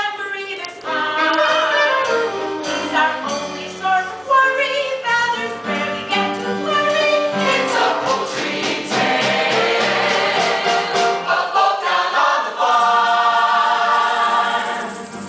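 Musical-theatre cast singing an ensemble number together in harmony. Near the end the voices hold long chords.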